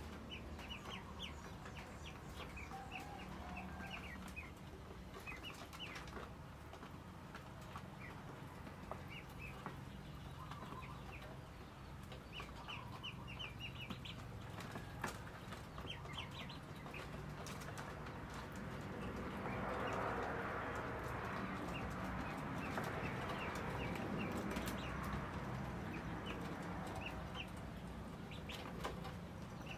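Chickens calling, with many short, high chirps and clucks scattered throughout over a steady low hum. A louder rushing, rustling noise swells for several seconds past the middle.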